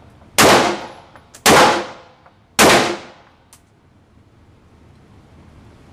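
Three gunshots about a second apart, each with a ringing, echoing tail, fired in steady succession.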